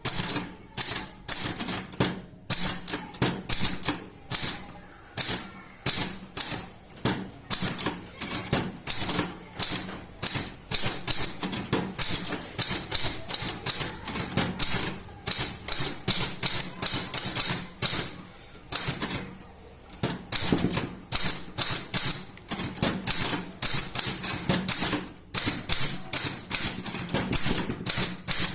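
Typewriter being typed on fast: rapid runs of sharp key strikes, several a second, broken by brief pauses.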